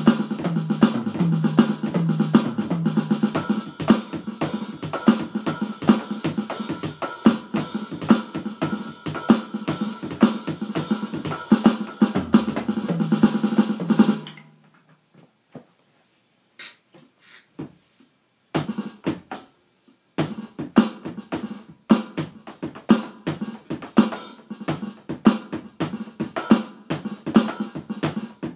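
Yamaha electronic drum kit played through its sound module: a busy rock beat of kick, snare and hi-hat over a backing track with a bass line. About halfway through, the backing track and beat stop suddenly, a few sparse hits follow, and the drumming starts again on its own about four seconds later.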